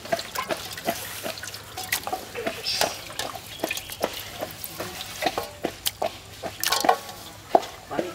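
Hands washing raw chicken pieces in water in a steel bowl: irregular splashes and knocks as the meat is rubbed and dropped back in.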